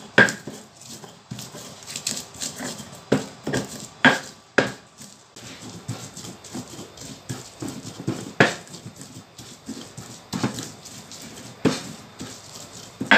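Stone pestle grinding and pounding in a stone mortar (Indonesian cobek and ulekan), crushing chillies, garlic and candlenuts into a spice paste. Irregular sharp stone-on-stone knocks over a rough grinding scrape, with a few louder knocks.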